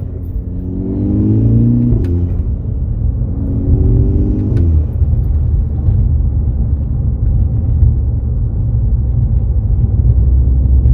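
MK6 Golf GTI's turbocharged 2.0 TSI four-cylinder, fitted with a COBB SF cold air intake and a 3-inch dump pipe, heard inside the cabin. It accelerates hard twice, the engine note rising each time and dropping at a gear change, then settles to a steady low drone while cruising.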